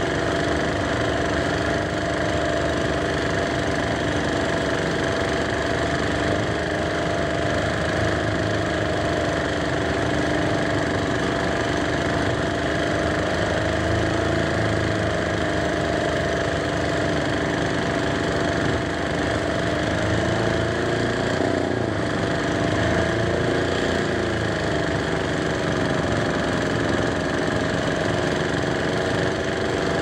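Two small air-cooled diesel engines on an outrigger fishing boat running together under load with a steady, knocking chug. About two-thirds of the way through, the engine speed sags and then picks back up.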